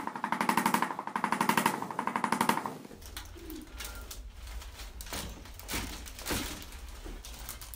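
A small motor-driven device pulsing very rapidly with a steady buzzing pitch, stopping abruptly about three seconds in. After that comes a low hum with a few soft knocks and rustles.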